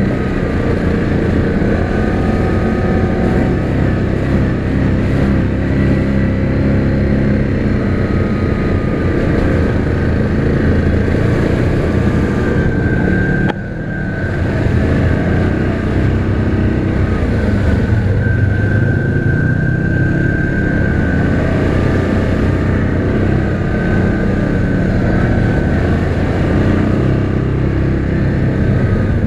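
2019 Yamaha Grizzly 700 ATV's single-cylinder engine running steadily under way, with a higher whine over the engine note that wavers a little in pitch. About halfway through the engine note dips briefly, then picks up again.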